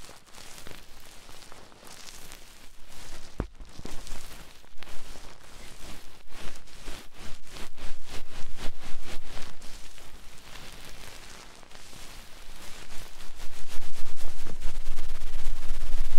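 Close-miked ASMR scratching and tapping on the microphone: quick crackling strokes that come thick and fast a few seconds in, then a low rubbing rumble that grows louder near the end.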